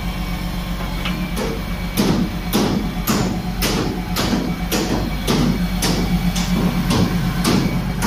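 Caterpillar wheel loader's diesel engine running at idle, with a sharp, regular clack about twice a second over it.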